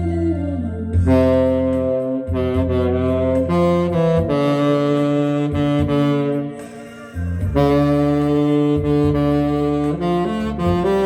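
Saxophone playing a slow melody in long held notes over an accompaniment backing track with a bass line; the melody pauses briefly about two-thirds of the way through, then comes back in.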